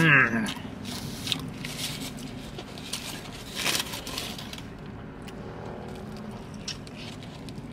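A person eating a double cheeseburger: a short hummed vocal sound with a gliding pitch at the start, then chewing and biting with small clicks, and the foil-lined wrapper crinkling, loudest in a brief rustle about halfway through.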